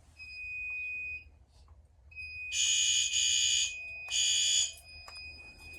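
Fire alarm horn sounding three short, loud, buzzy blasts in a temporal-3 evacuation pattern after a manual pull station is pulled in a walk test, over a steady high-pitched electronic tone that starts just after the pull, drops out briefly, and comes back.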